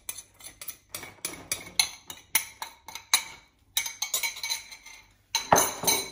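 Irregular sharp clinks and taps on a glass bowl as minced garlic is knocked and scraped out of it into a plastic zip-top bag, with a louder clatter about five and a half seconds in.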